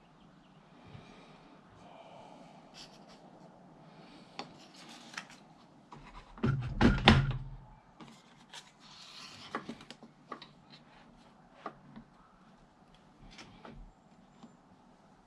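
Small wooden parts being handled and rubbed together, with scattered light clicks. About six and a half seconds in comes a louder burst of knocking and low rumble lasting about a second and a half.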